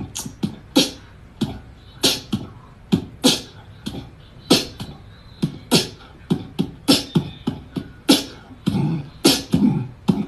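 A cat hissing and spitting in short, sharp breathy bursts, two or three a second in an irregular run: a defensive threat aimed at a slipper.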